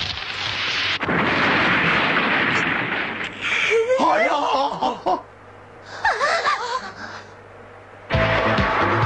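Animated sound effect of a big tree being torn down: a loud rushing, crashing noise for the first three seconds or so. Then two bursts of excited shouts and laughter from onlookers, and music starts about eight seconds in.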